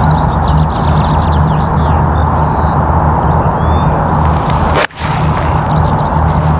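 A golf club striking a ball off the tee about five seconds in: a single sharp click, after which the sound briefly drops out. Under it runs a steady rushing background noise, with faint bird chirps.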